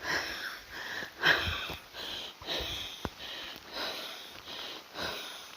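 A person sniffing and breathing in short, irregular strokes, about one or two a second, with a single sharp click about three seconds in.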